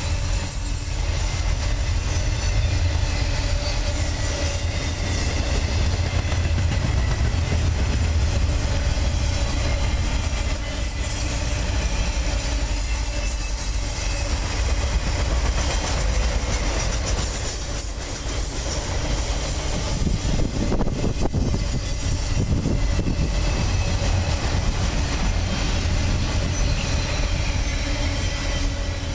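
Intermodal freight train rolling past, its double-stack container cars and trailer flatcars running steadily on steel wheels over the rails, a continuous rumble.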